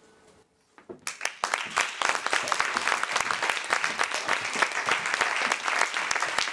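Audience applauding, starting suddenly about a second in after a near-quiet moment.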